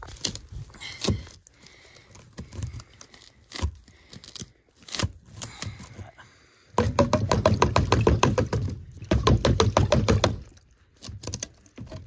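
Knocks and scrapes of a clogged PVC condensate drain line being worked by hand. About seven seconds in there are a few seconds of rapid crackling and sputtering as the sludge blocking the drain breaks loose.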